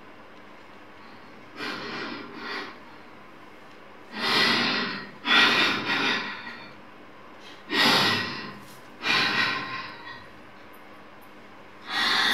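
A woman breathing loudly and raggedly, gasping: two faint breaths, then five heavy ones about every one and a half seconds, acted as the breathing of someone in pain and fear.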